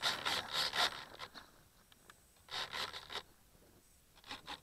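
Spells of short scraping and rustling bursts close to the microphone: one through the first second, another about halfway, and a brief one near the end.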